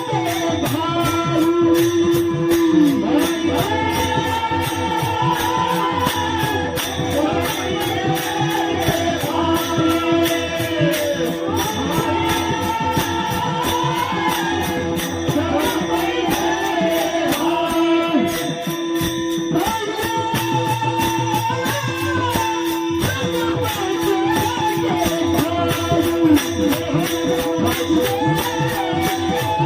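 A man singing a Marathi devotional bhajan over a steady held drone note, with fast, evenly spaced jingling percussion keeping the beat.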